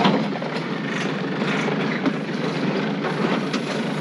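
Four-wheel drive crawling slowly through a rutted track with its front differential locked: steady engine and driveline noise, heard from inside the cabin, with scattered knocks and rattles over the bumps.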